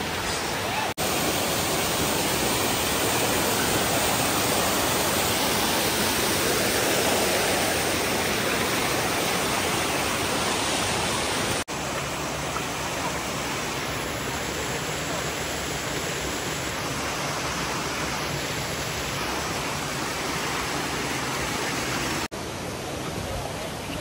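Waterfall rushing: a loud, steady roar of falling water with no distinct pitch. It is broken by abrupt cuts about a second in, near the middle and near the end, and is slightly quieter after the middle cut.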